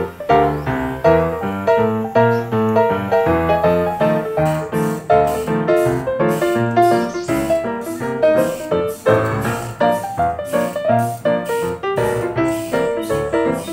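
Background music: a piano playing a quick, rhythmic tune with a bass line.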